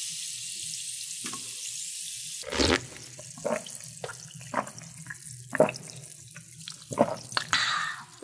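Coca-Cola fizzing in a glass mug over ice just after being poured, the hiss fading away, then a string of swallowing gulps about a second apart as it is drunk.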